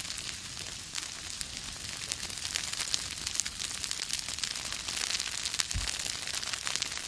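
Grass and brush fire burning: a dense crackle of sharp pops over a steady rushing hiss, with a low thump about six seconds in.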